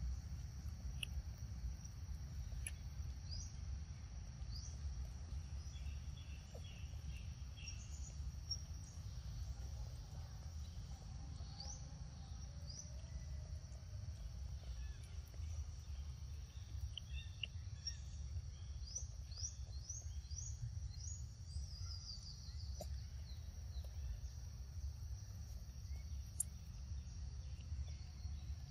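Forest ambience: birds giving short rising chirps, most of them bunched about two-thirds of the way through, over a steady high insect drone and a low rumble.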